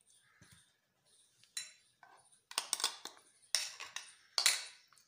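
A spoon scraping and clinking against the marinade bowl as thick red marinade is scraped out over chicken pieces: about four sharp strokes from a second and a half in, the loudest near the end.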